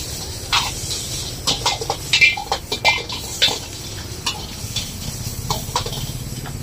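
Metal ladle clanging and scraping against a kadhai (wok) while vegetables are stir-fried for chowmein. Irregular sharp clanks, some ringing briefly, come thick for the first three seconds or so and then thin out. A steady low rumble runs underneath.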